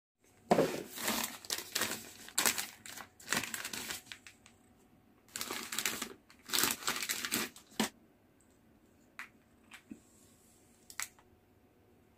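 Plastic wrapping crinkling and rustling in two long bursts as items are pulled out of it, then a few light clicks of hard plastic being handled.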